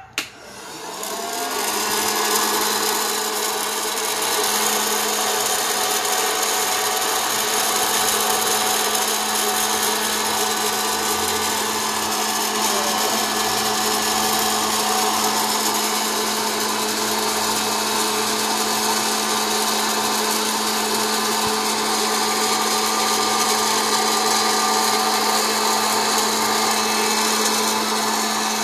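Hot-air popcorn maker switched on with a click, its fan motor spinning up over about two seconds to a steady whir with a low steady hum under it.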